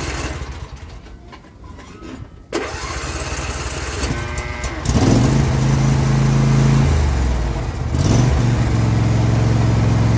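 John Deere S160 lawn tractor engine being started on choke: it cranks, catches about five seconds in and runs, its speed sagging briefly and picking back up near eight seconds before settling into a steady run.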